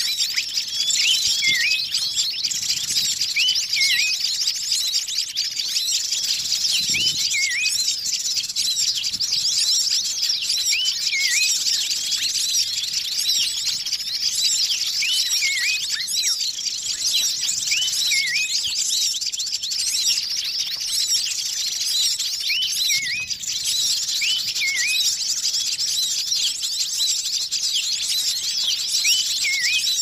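Bird-lure recording of many small wild birds calling at once in a noisy commotion: a dense, unbroken, high-pitched chatter of chirps. Small groups of hooked whistled notes stand out every few seconds. It is a mixed-species 'pikat ribut' lure call, played to draw wild birds in.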